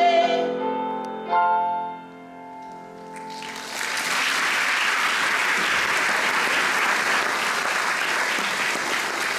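A young man's held sung note ends, and the musical accompaniment plays a final chord that rings and fades. About three and a half seconds in, the audience breaks into applause that carries on steadily.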